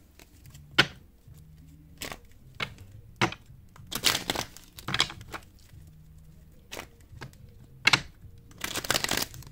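Tarot cards being shuffled and handled: several sharp snaps and short bursts of rustling, with the longest rustle near the end.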